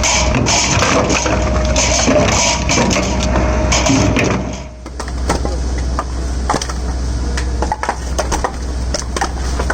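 F500 firewood processor at work: a steady low machine hum under dense crackling and crushing as wood is split, easing off about halfway through into scattered sharp knocks and clatter.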